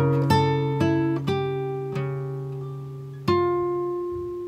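Background music: slow, plucked acoustic guitar notes, each one ringing and fading before the next.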